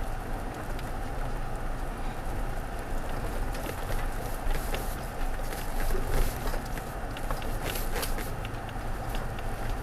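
Cabin noise of a 2016 Toyota Tacoma crawling slowly over a rough dirt road: a steady low rumble of engine and tyres, with many scattered clicks and knocks as the tyres go over gravel and stones, thickest around the middle.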